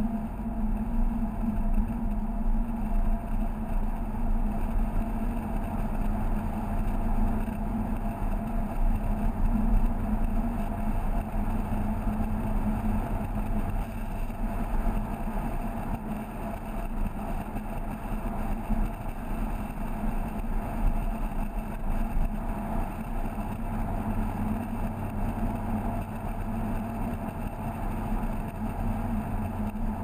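Mazda MX-5's four-cylinder engine running steadily at cruising speed, with tyre and road noise, heard from a GoPro mounted on the car.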